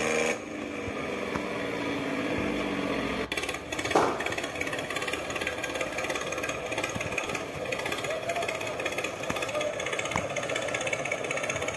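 Engine-like rapid rhythmic chugging, like a tractor engine putting along. There is a short, sharp, loud sound about four seconds in.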